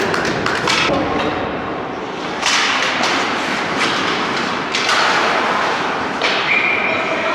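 Ice hockey play in a rink: skate blades scraping the ice and stick-and-puck hits over a steady noisy din, with sudden sharp hits about two and a half, four, five and six seconds in.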